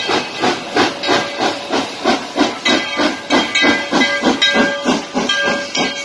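Steam locomotive chuffing past close by, its exhaust beating in a steady rhythm of about four puffs a second, with brief high ringing tones breaking in now and then over the second half.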